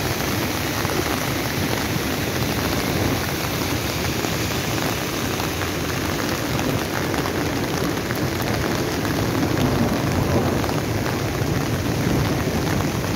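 Steady rain falling on the ground and vegetation: a constant hiss of many small drop impacts.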